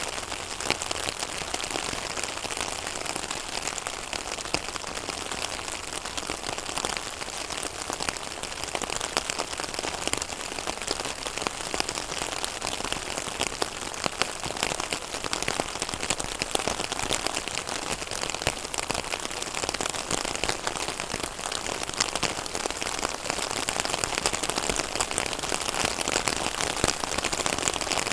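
Steady rain falling on a pond's water surface: a continuous patter of many small drops.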